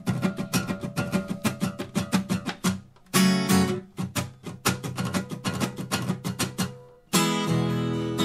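Acoustic guitar played live: a quick, even run of picked and strummed strokes. A louder chord rings out about three seconds in, and another near the end.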